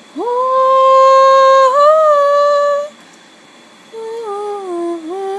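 A person humming: a note that swoops up and is held steady for about two and a half seconds, then after a short pause a second phrase that steps down in pitch.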